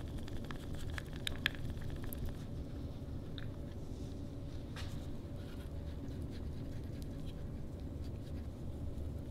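A stir stick clicking and scraping against a small plastic cup while mixing epoxy, with a few light clicks in the first two seconds, then faint brushing and handling. A steady low hum runs underneath.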